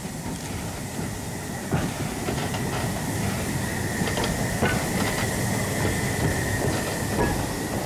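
Narrow-gauge steam train running past: wheels clicking irregularly over rail joints above a low rumble, with a thin steady squeal from the wheels, growing slightly louder.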